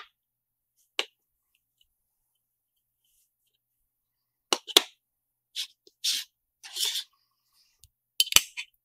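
Small metal case parts being handled and fitted together: the magnalium top cover of an mSATA SSD enclosure set onto its base. A click at the start and another about a second in, a pause, then two sharp clicks, a few brief scrapes, and a quick cluster of clicks near the end, the loudest of them.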